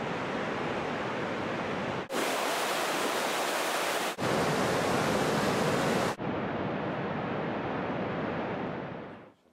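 A large waterfall's steady roar of falling water, heard in four shots joined by hard cuts, each at its own level. It fades in at the start and fades out near the end.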